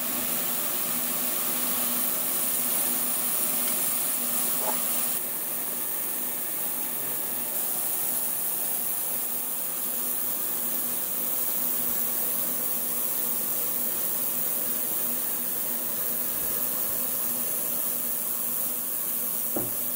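Industrial ultrasonic gun-cleaning tank (Infante S30) running a cleaning cycle, its cleaning solution cavitating around the gun parts in the basket: a steady hiss over a faint low hum, changing slightly in tone about five seconds in.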